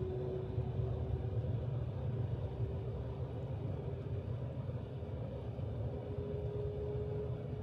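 Cabin noise of the Shanghai Maglev train accelerating through about 115 to 125 km/h: a steady low rumble with a faint whine that sits a little higher in pitch near the end.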